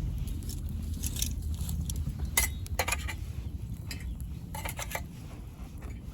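Metal clinks and clatter at a small camping wood stove, a few sharp knocks scattered through, over a steady low rumble.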